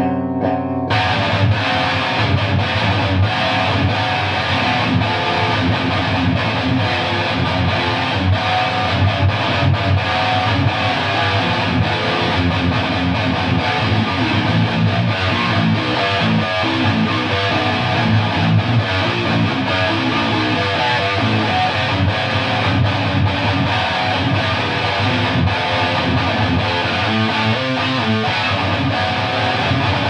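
Electric guitar with EMG 81 pickups played through a Bridge City Hardanger 100 amp head, cranked loud into a Marshall 4x12 cabinet loaded with a mix of Celestion G12K-85 and Vintage 30 speakers: distorted, heavy riffing. A held chord rings for the first second, then dense riffs take over.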